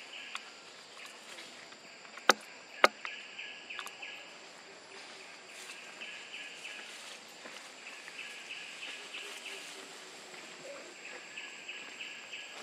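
Outdoor ambience of chirping in repeated short trains of rapid pulses, over a steady high-pitched insect drone. Two sharp clicks about half a second apart, a couple of seconds in, are the loudest sounds.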